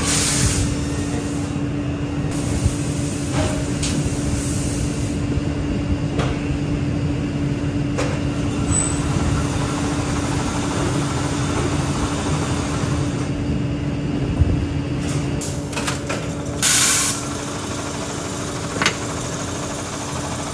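Steady hum of shoe-factory machinery with one constant tone through it, scattered light clicks and knocks, and a short burst of hiss about three-quarters of the way through.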